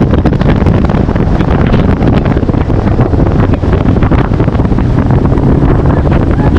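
Bass boat under way at speed: a steady outboard motor drone and water rushing along the hull, under loud wind buffeting on the microphone.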